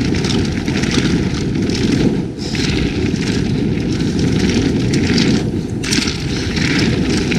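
Wind rushing over a helmet or chest-mounted camera microphone, mixed with an Evil Calling mountain bike's tyres rolling and rattling over a dirt trail at speed. Loud and steady, heaviest in the low rumble.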